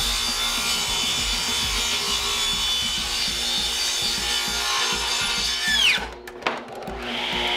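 Table saw cutting 3/4-inch plywood, a steady whine of the blade through the wood, run without a riving knife or splitter fitted. About six seconds in the sound stops with a quick falling whine, and guitar music comes in near the end.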